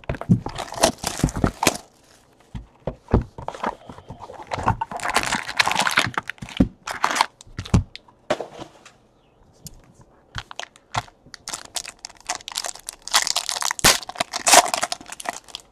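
Cardboard trading-card boxes being torn open and plastic-wrapped card packs handled: bursts of tearing and crinkling broken by sharp cracks and clicks.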